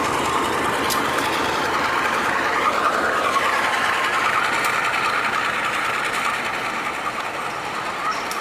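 A train moving through the station, a steady running noise of wheels on rail and machinery that swells briefly about three seconds in.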